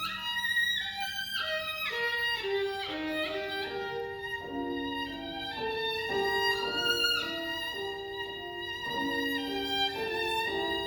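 Violin playing a melodic passage, one bowed note after another.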